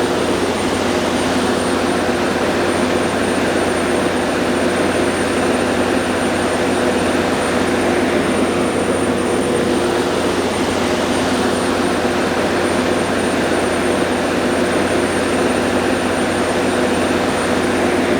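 Generac 400 kW diesel standby generator running steadily, a loud even engine drone with a thin high whine that comes in right at the start.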